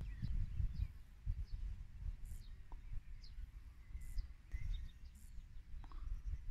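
Outdoor garden ambience: a low, gusty rumble of wind on the microphone, with scattered short, high bird chirps, several of them quick falling notes.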